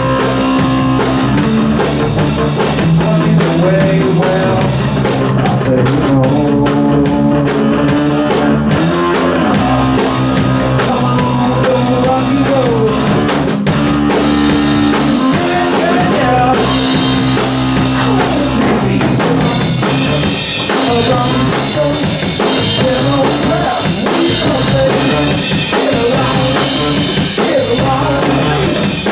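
Rock music with a drum kit and guitar playing steadily.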